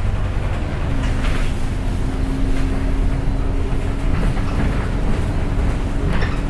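Double-decker bus running, heard from inside on the upper deck: a steady low engine and road rumble, with a steady hum joining about a second in.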